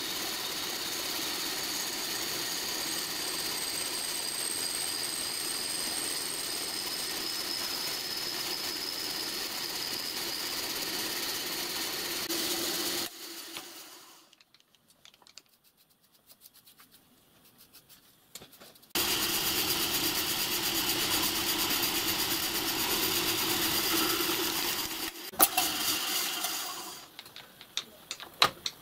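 Milling machine running steadily with a small end mill cutting an arc slot in quarter-inch aluminium plate. The sound drops away for several seconds about halfway and then resumes. A sharp click and some uneven quieter noise follow near the end.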